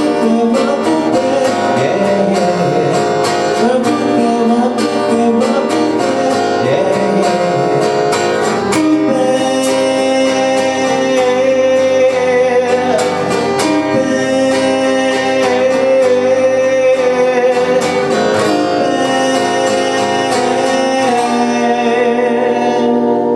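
A song played with guitar and a singing voice, ending on a held chord near the end.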